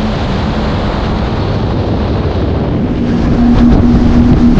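Mercury outboard engines of a 47-foot Freeman boat running under way at speed, a steady engine hum under heavy wind buffeting on the microphone and water rushing past the hull. The engine hum gets louder about three seconds in.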